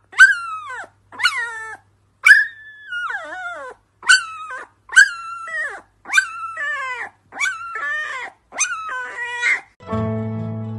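Husky puppy giving about nine short, high howls, each falling in pitch, roughly one a second. Acoustic guitar music starts near the end.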